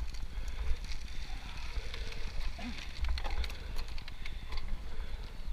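Road bicycle riding on a dirt road: tyres crunching over grit and loose gravel, with scattered clicks and rattles from the bike. Wind rumbles on the camera microphone throughout.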